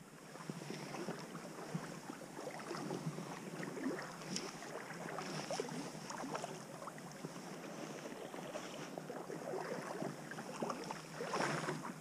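Creek water sloshing and splashing around the legs of a wading angler, a run of small irregular splashes with a louder surge of splashing near the end.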